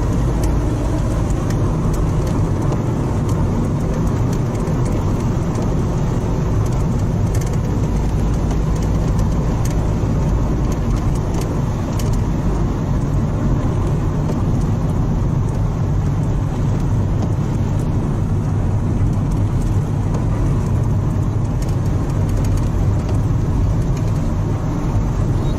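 Steady low rumble of a running vehicle, even and unchanging throughout.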